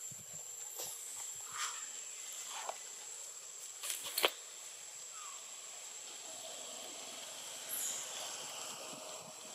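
Outdoor forest ambience: a steady high-pitched whine with a few short chirps, and a cluster of sharp clicks about four seconds in.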